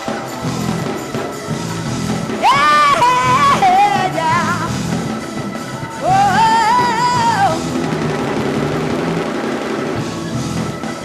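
Live gospel praise music from a church band, with a high voice singing out twice, each a wavering, held phrase a few seconds long.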